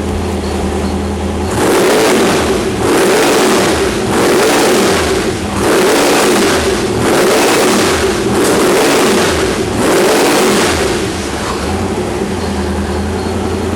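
Twin-turbocharged Ford 428 Windsor small-block V8 idling, then revved in about six quick throttle blips, each rising and falling over about a second. It settles back to a steady idle near the end.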